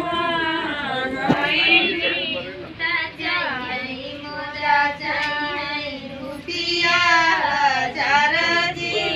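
A person singing in long, wavering held notes, with brief breaks between phrases.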